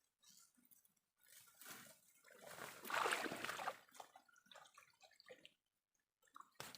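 Water splashing and sloshing, building to a loudest rush about three seconds in, then a few smaller splashes and drips. This is a hooked eel being pulled out of a small stream.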